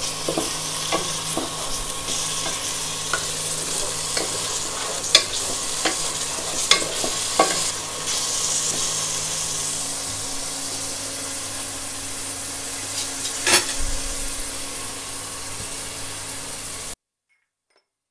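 Chopped onions and garlic, onion and cumin pastes sizzling in hot oil in a non-stick pot, stirred with a wooden spatula that knocks and scrapes against the pan a number of times. The sizzling cuts off abruptly near the end.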